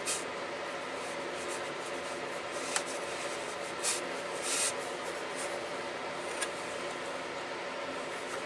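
Faint rubbing of a brush sweeping water across watercolour paper, a couple of soft swishes a few seconds in and two light ticks, over a steady room hum.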